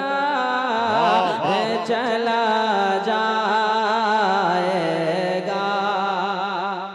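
Man singing a naat unaccompanied into a microphone: a long melismatic run of held, wavering notes without clear words, over a steady low hum.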